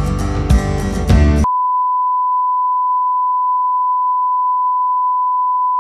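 Gentle plucked-guitar background music that cuts off abruptly about a second and a half in, replaced by a steady, unbroken test-tone beep of the kind played with colour bars.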